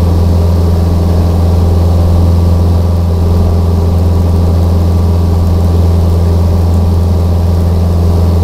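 Steady low drone of a small aircraft's engine and propeller, heard inside the cabin in cruise flight.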